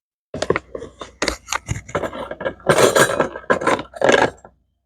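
Small metal miniature cooking utensils, such as tiny ladles, clinking and rattling against each other as they are handled, in a quick run of sharp knocks with a few louder clattering bursts.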